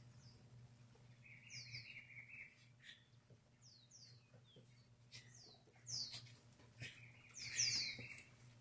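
Small birds chirping: short, high calls that slide down in pitch, coming singly and in pairs, with a raspier, lower buzzing call about a second in and again near the end, over a faint steady low hum.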